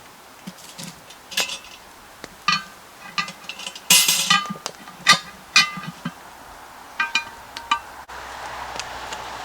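Metal cooking gear being handled: a string of sharp clinks and clanks, some ringing briefly, with a longer clatter about four seconds in. About eight seconds in it cuts to a steady hiss.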